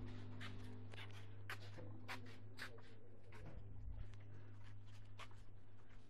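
Irregular soft clicks and scuffs from walking and from handling the phone while it is carried, over a steady low hum.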